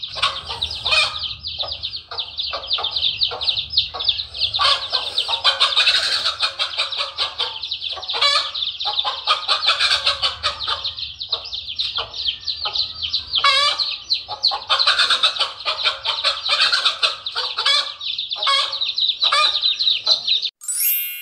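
Domestic chicks peeping continuously in a high, dense chorus, with a mother hen's loud repeated clucks over it as she faces a cobra to shield her brood. A single bright chime rings out right at the end.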